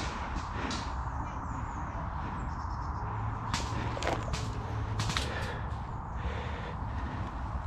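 Leaves and twigs rustling and brushing close to the microphone as a player shifts in thick undergrowth. A few sharp snaps or clicks come between about three and a half and five seconds in.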